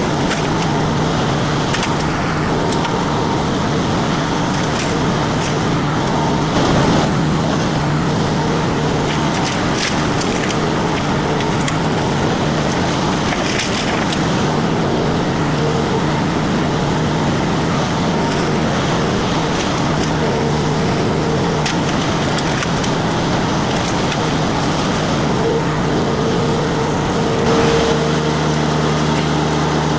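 Mini skid steer engine running steadily under load as a disc mulcher chews into brush and wood, with frequent cracking and splintering over the drone. Near the end the engine's tone settles into a steadier, evener drone.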